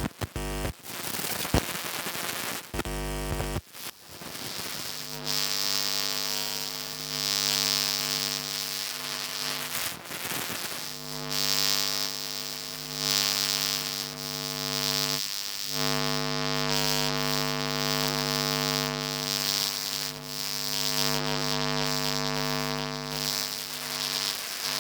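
An electrical device's electromagnetic field made audible through a homemade electromagnetic pickup coil: a steady buzzing hum with a hiss above it, which breaks off briefly twice. The first few seconds hold crackles and clicks before the hum settles in.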